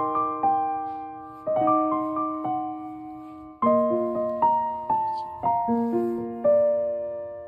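Background music: a slow, gentle piano melody, each note or chord struck and left to fade.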